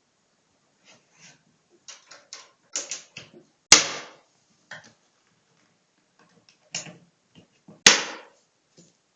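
A plastic cooler box being handled: a run of small clicks and knocks, with two loud sharp snaps about four seconds apart, each dying away over about half a second, like the lid or its latches slapping shut.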